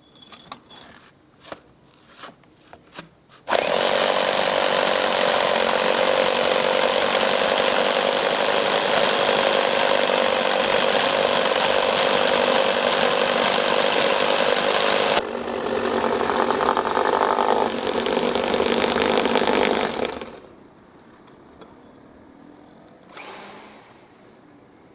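Electric drill with a core bit boring through a wall for an air-conditioner pipe, running loud and steady with a constant whine. A few knocks and clicks come first as the bit is set in the hole. About 15 seconds in the sound drops and changes, runs on for about five seconds, then stops.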